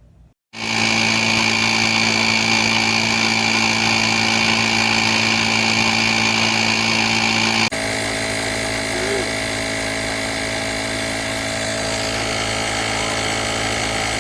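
Small electric air compressor of a portable UIBI X5 jump starter/tire inflator running with a steady hum and a high whine. It switches on abruptly, drops slightly in pitch and level partway through, and cuts off abruptly near the end.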